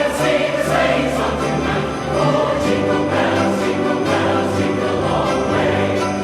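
Christmas music: a choir singing over sustained chords, with jingle bells shaking about twice a second.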